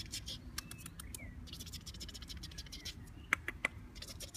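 Puppies' claws scratching and clicking on a plastic pen floor and towel, in bouts of rapid fine ticking, with three sharper clicks a little past the middle.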